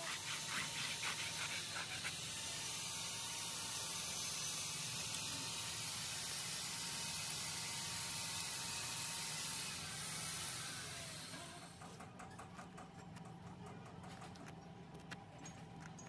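A steady hiss of air, like compressed air escaping, that cuts off about twelve seconds in. After it come light, irregular scraping clicks of a thin metal rod worked between the fins of a bulldozer radiator core.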